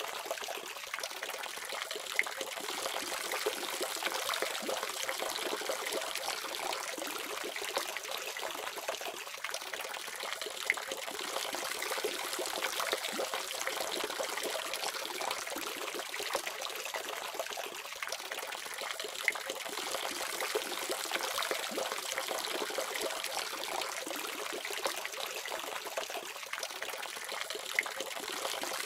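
Water faucet running steadily, a continuous splashing stream of tap water with small scattered drips and splashes.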